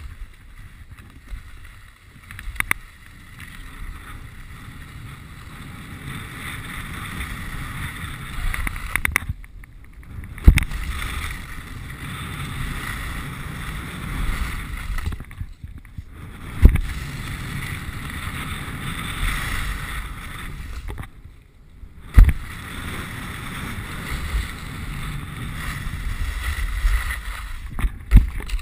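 Skis scraping and sliding over packed snow, with wind rushing over the camera's microphone. Three times the snow noise drops out for about a second while the skier is airborne off a jump, and a hard thump of the landing follows. One more thump comes near the end.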